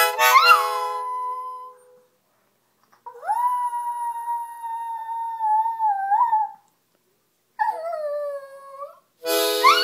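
A dog howling along with a harmonica. A short harmonica chord opens, and the dog's howl rises out of it; then come two long howls, the first held steady for about three seconds and the second sliding down in pitch. Near the end another harmonica chord sounds.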